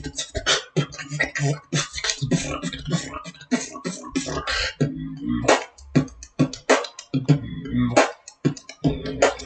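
Beatboxing: a fast run of vocal percussion, sharp kick, snare and click sounds, with a hummed bass note held under the beat in places.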